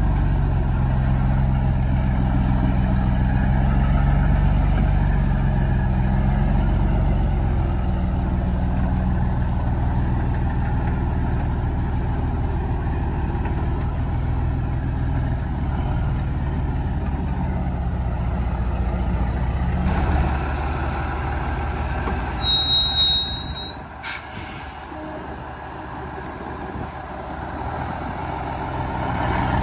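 Heavy truck's diesel engine running steadily. Three-quarters of the way through comes a brief loud high-pitched brake squeal and a short hiss of air. The engine then drops quieter before building up again near the end.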